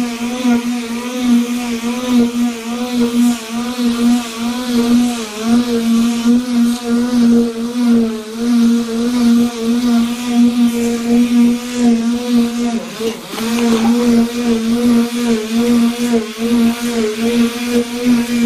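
Electric palm sander running on bare wood, a steady motor whine over the hiss of the sandpaper. The whine wavers slightly as the sander is pushed back and forth, and sags briefly about two-thirds of the way through.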